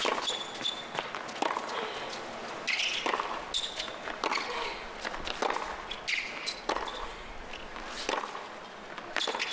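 Tennis rally on a hard court: racquets striking the ball back and forth and the ball bouncing, as a series of sharp knocks. Short grunts from the players and brief high squeaks come alongside the hits.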